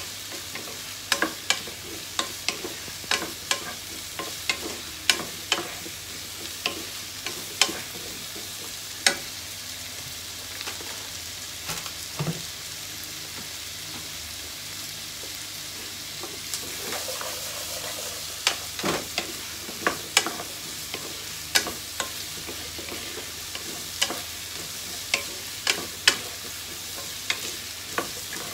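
Diced potato and carrot sizzling in a non-stick frying pan, with a wooden spatula knocking and scraping against the pan about twice a second as they are stirred. The stirring stops for several seconds about a third of the way in, leaving only the sizzle, then starts again.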